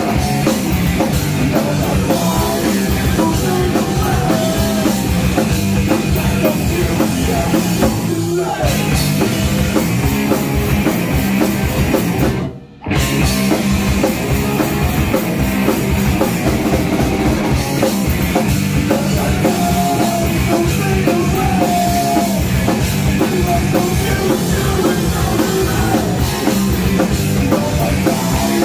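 Live punk rock band playing loudly, with drum kit, bass guitar and sung vocals. The sound drops out suddenly for about half a second around the middle, then the band carries on.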